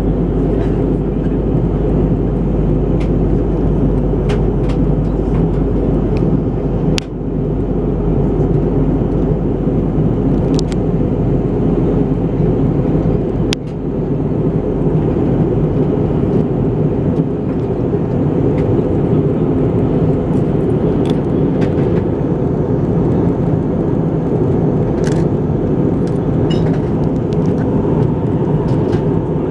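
Steady cabin roar inside an Airbus A320-214 airliner in flight: engine and airflow noise from its CFM56-5B turbofans, heard at a window seat. The noise dips briefly twice, about seven and fourteen seconds in, and a few faint clicks sound over it.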